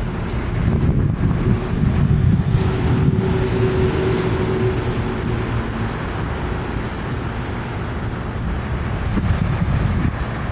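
Wind rumbling on the microphone over the hum of road traffic, with a faint steady hum in the first half.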